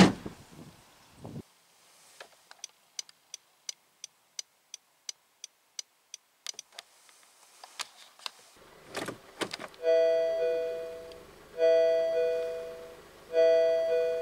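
A car door thud right at the start, then a run of light ticks about three a second. From about ten seconds in, the Honda N-VAN's reverse warning buzzer rings, a pitched tone repeating about every second and a half, each ring fading away; it is a Honda-style reverse buzzer, mild rather than grating.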